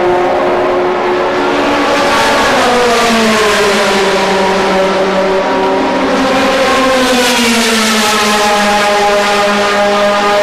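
Onboard sound of a Ferrari GT race car's engine running hard, its revs falling about two seconds in and the pitch shifting again after about seven seconds.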